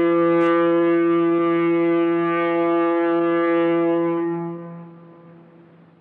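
Foghorn sounding one long, low, steady blast that fades away about four to five seconds in.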